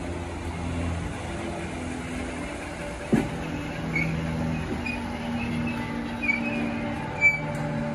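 Merseyrail Class 508 electric multiple unit running into the platform and slowing to a stop, with a steady hum of motors and running gear. A sharp knock comes about three seconds in, and short high squeals follow over the second half as it brakes.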